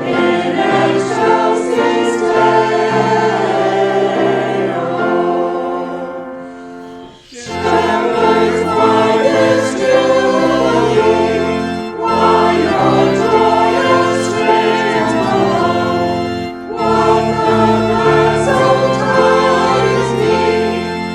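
A choir singing, with sustained chords. The sound fades to a brief break about seven seconds in, then the choir comes back in with deeper bass notes underneath.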